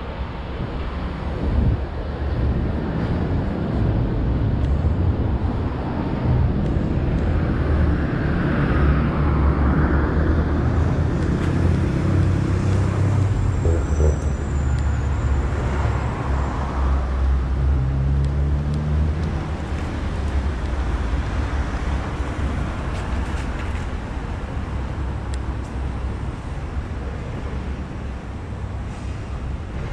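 Road traffic on a city street: vehicle engines running and passing in a low rumble that is loudest in the middle stretch.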